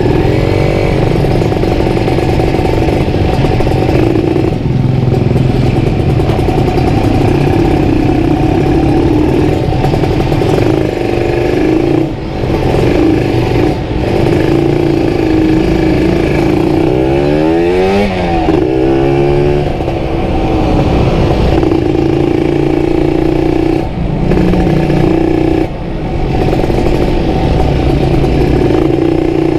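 Kawasaki Ninja RR 150's two-stroke single-cylinder engine through an aftermarket CMS exhaust, running under way while ridden, its note dipping briefly a few times. Around the middle the pitch sweeps up and down for a few seconds.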